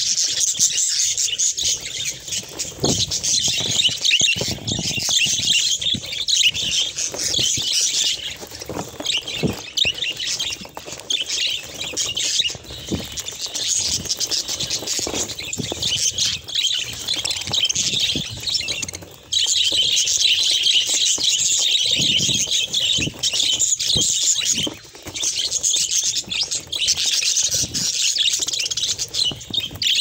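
A flock of budgerigars chattering and warbling nonstop, a dense mass of overlapping chirps that dips briefly a few times.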